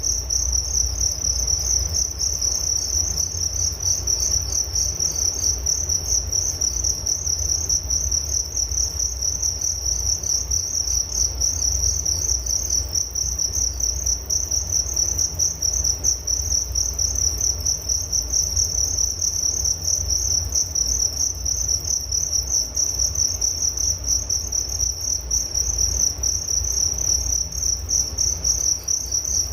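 Crickets chirping in a continuous, rapidly pulsing high-pitched trill, over a low rumble.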